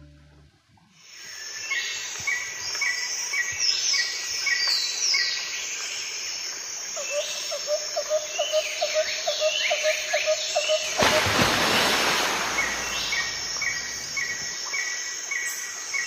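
Garden ambience with several birds calling: rows of short repeated chirps and quick falling whistles, with a lower, rapidly pulsed call joining about halfway through. About two-thirds of the way in, a wash of rushing noise rises over the birds for roughly two seconds.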